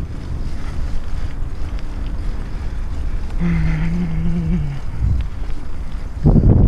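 Wind buffeting a helmet-mounted camera's microphone, with mountain bike tyres rolling over a dirt forest track. A short, steady low hum comes about halfway through, and there is a louder gust near the end.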